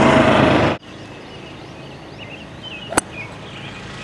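A golf club strikes a teed-up ball with one sharp click about three seconds in, over quiet outdoor ambience with birds chirping. In the first second a loud small engine is running, and it cuts off abruptly.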